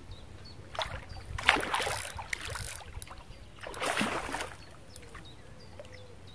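Hooked carp splashing at the water's surface while being played on the rod, in three noisy bursts: a short one about a second in, a longer one around two seconds, and another around four seconds.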